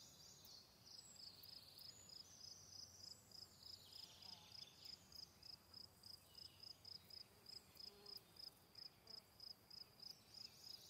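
Faint insect chirping: an even, high-pitched chirp about three times a second, with a few softer chirps over it.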